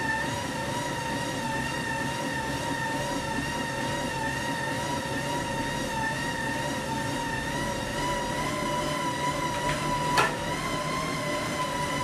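Road bike spinning on rollers: the tyres and roller drums give a steady whirring whine that wavers slightly in pitch with the pedalling, over a low rumble. A single sharp click about ten seconds in.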